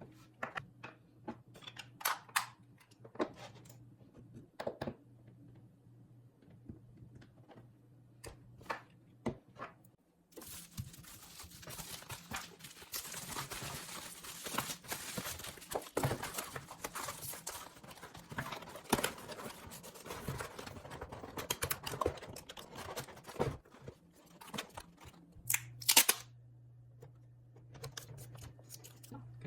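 Packing an order: scattered clicks and taps of items being handled, then about ten seconds in a long stretch of rustling and crinkling packing material mixed with taps, and more clicks near the end. A low steady hum sits under the quieter parts.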